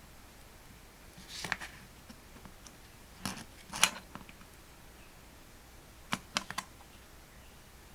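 A few light clicks and taps from small objects being handled, in short groups about a second and a half in, around three to four seconds in (the loudest), and a quick run of three near six seconds.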